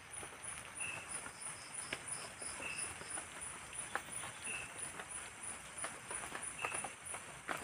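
Night forest ambience: insects chirping in a steady high pulse about three times a second, with a faster pulsed trill for a couple of seconds early on and a short call repeating about every two seconds. Scattered drips and ticks from light drizzle sound over a soft hiss.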